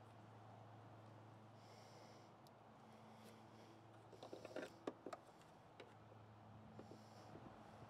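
Near silence with a low steady hum. About four seconds in comes a short cluster of faint clicks and rattles as a clear plastic wire connector and the car's tail-light wiring are handled, followed by a few softer clicks.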